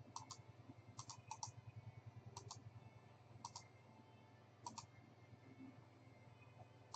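Faint computer mouse clicks, mostly in quick pairs, a second or so apart, over a low steady hum.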